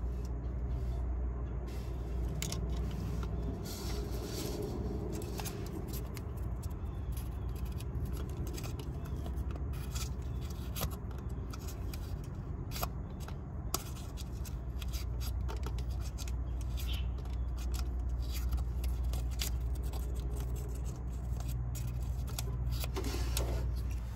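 Scattered small metal clicks and scrapes from hand work at the open distributor and breaker points of a 1937 Plymouth's flathead six, over a steady low hum.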